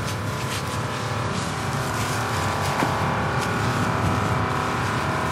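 Small engine of a portable fire pump running steadily at high revs, feeding the hose lines, with a few faint snaps over it.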